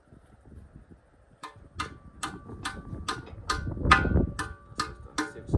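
Steady metallic clicking during bike assembly, about two or three clicks a second, each with a short ringing tone, with a louder knock about four seconds in.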